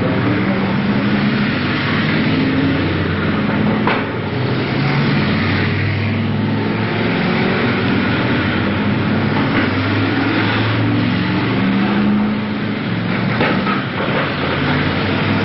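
BriSCA F1 stock cars racing round the track, several engines running hard at once, their pitch rising and falling as cars go by.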